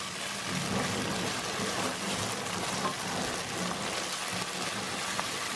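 Chopped onion, garlic and tomato ketchup sizzling steadily in oil in a hot stainless steel pan, stirred with a wooden spoon.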